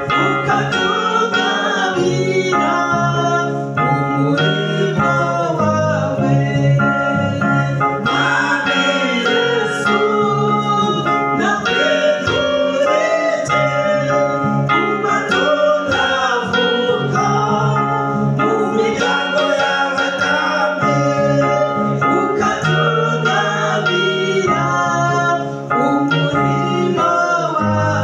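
A woman and a man singing a gospel song into handheld microphones, over steady held chords.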